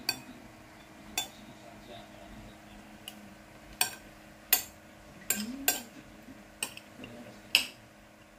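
Metal spoon clinking and scraping against a ceramic plate as rice is scooped up, about nine sharp clinks at irregular intervals.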